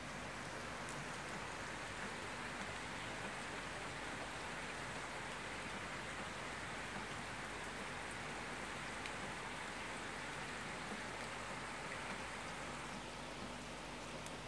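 Rain falling steadily, a continuous even hiss with an occasional faint drop tick.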